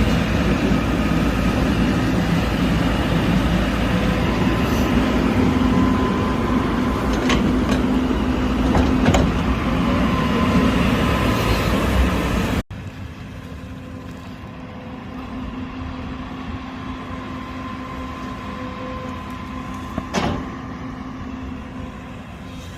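Backhoe loader's diesel engine running steadily. About halfway through the sound cuts abruptly to a quieter stretch of the engine running, with one sharp knock near the end.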